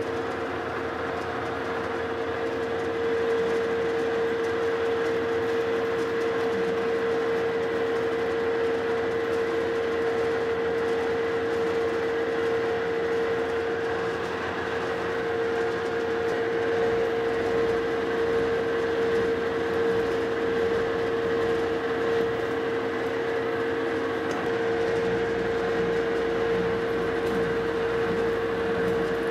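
Metal lathe running at a slowed spindle speed while a single-point tool cuts a deep 7-threads-per-inch thread in a steel bar: a steady machine noise with a constant whine. The speed was turned down to reduce tool chatter.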